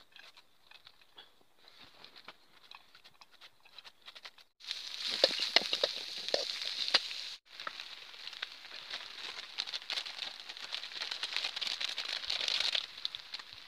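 Faint crackling of a wood campfire, then, about four and a half seconds in, loud sizzling and spitting of cabbage and rice frying in a pan over the fire for nasi goreng. The sizzling breaks off for a moment in the middle and drops away near the end.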